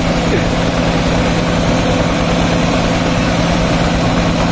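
Diesel engines of a Mahindra 265 DI tractor and an Eicher 242 tractor running steadily at high load, the Mahindra nearest, as the two pull against each other in a tug-of-war.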